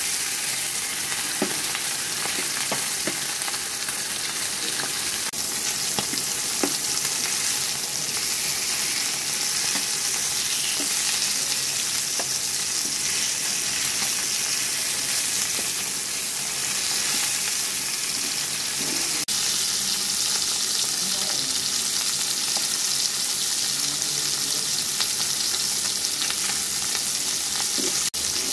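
Fish pieces frying in hot oil in a nonstick pan, a steady sizzle, with now and then a light scrape or tap of a flat spatula turning them.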